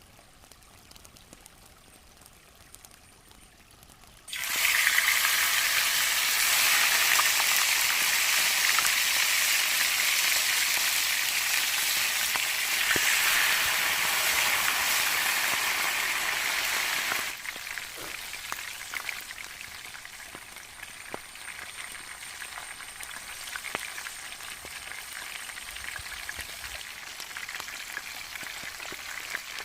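Chicken frying in hot oil. The sizzling starts suddenly about four seconds in, runs loud for about thirteen seconds, then drops to a quieter steady crackle with scattered pops.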